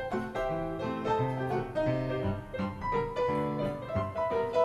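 Piano music playing a lively tune, with moving bass notes under a melody, in the manner of a silent-film accompaniment.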